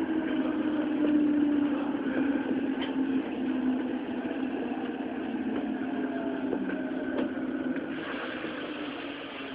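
Tokyo Metro 07 series subway train slowing into a station, heard from inside the car. Its Mitsubishi IGBT VVVF inverter gives a whine that falls slowly in pitch over wheel and running noise, growing quieter as the train brakes; the lowest tone drops out about eight seconds in.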